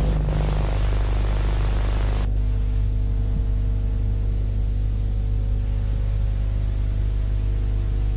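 Steady low electrical hum with tape hiss from the audio track of an old video transfer. The hiss drops away abruptly about two seconds in, leaving the hum.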